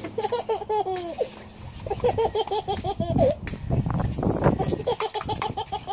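A toddler giggling in three runs of quick, high-pitched laughs, over the spray and splatter of a garden hose nozzle.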